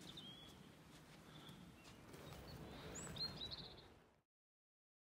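Faint songbirds giving a few short chirps and trills over low outdoor background noise. The sound cuts to complete silence about four seconds in.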